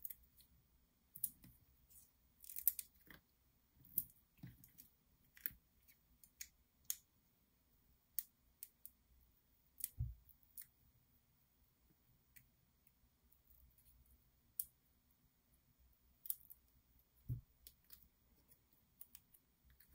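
Faint, scattered clicks and crinkles from small paper pieces and a plastic glue-dot sheet being handled and peeled, with a couple of soft taps on the wooden tabletop.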